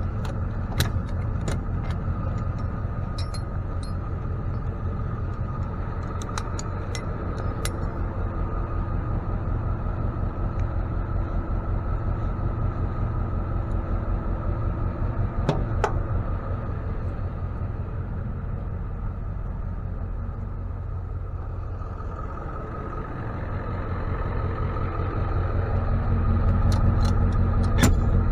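Tow truck's engine running steadily, with scattered sharp metallic clicks and clinks of hook-up hardware; the engine grows louder over the last few seconds.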